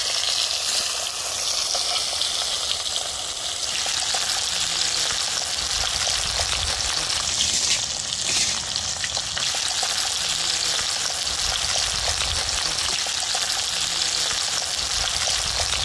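Masala-coated jalebi fish (tilapia) frying in coconut oil on a hot dosa griddle: a steady, even sizzle.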